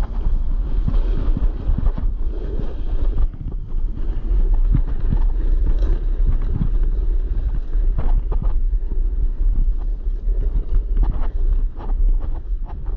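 Wind rushing over the microphone while a snowboard slides and turns down packed snow, with scattered short scrapes from the board's edge.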